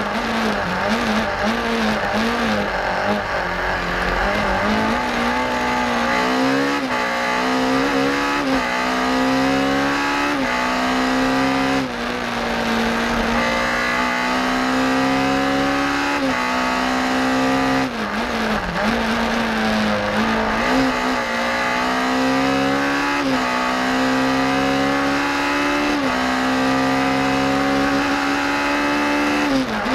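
BMW M3 rally car engine running hard at high revs, heard from inside the cabin. The note climbs through each gear and drops sharply at a quick gear change every two to four seconds, with a couple of brief dips where the throttle is lifted.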